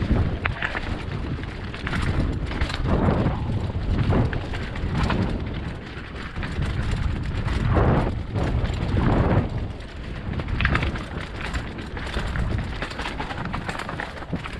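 Mountain bike descending a rough dirt trail: tyres on dirt and rocks and the bike rattling over bumps, in uneven surges with sharp knocks, with wind buffeting the microphone.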